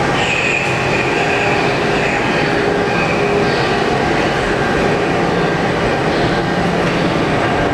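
Elevator machinery running in its machine room: a steady, loud mechanical drone with a high whine over it.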